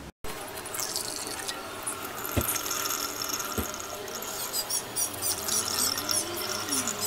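Copper(II) acetate solution running in a thin stream into a glass jar as it is filtered, a steady trickle and splash with a couple of light clicks.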